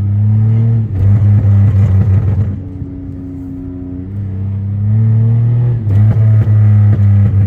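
Pontiac Grand Prix GT's 3.8-litre V6 running loud through a catless exhaust under throttle, a deep steady drone. It eases off for about a second and a half near the middle, then pulls loud again.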